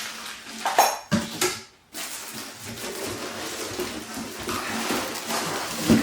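Boxed exercise-stepper parts being handled and set down: a few sharp clinks and knocks in the first second and a half, then a steady rustle of packaging, and another knock at the end.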